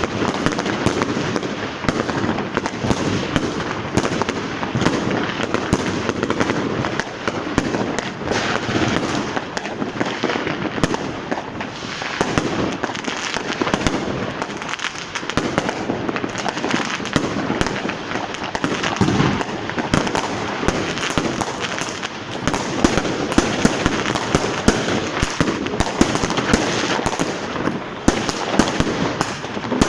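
Fireworks and firecrackers going off without pause: a dense, continuous crackle of overlapping bangs and pops, with louder bangs standing out in the second half.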